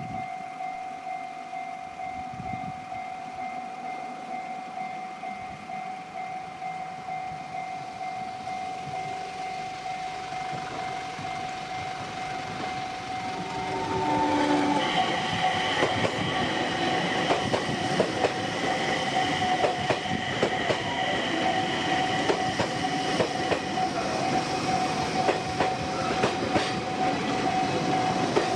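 A railway level crossing's warning bell rings steadily. About halfway through, a train arrives and passes over the crossing, its wheels clacking rapidly over the rail joints under the bell.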